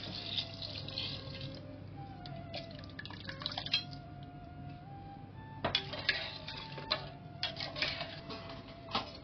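Water poured into a stainless steel pressure cooker, splashing into the curry, with a second pour a few seconds in; in the second half a metal slotted spoon stirs and clinks sharply against the side of the pot several times.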